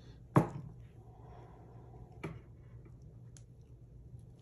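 A sharp tap about half a second in, then a softer tap about two seconds in, over a faint low steady hum.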